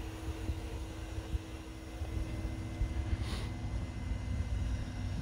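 Pond vacuum running, its motor making a steady hum over a low rumble, with a brief hiss about three seconds in.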